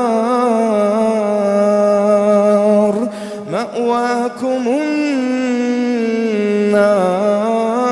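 Male Quran reciter chanting in melodic tajweed style, holding long drawn-out notes, with quick rising vocal slides about three to four seconds in before the held note resumes.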